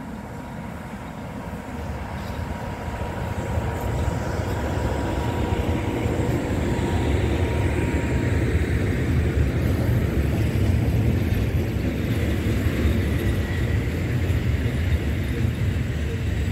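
PKP Cargo electric locomotives running light, an ET41 twin-unit leading with an ET22 behind, passing on the track: the rumble of wheels on rails grows over the first few seconds as they approach, then stays heavy and steady as they go by. A thin steady whine is heard in the first half.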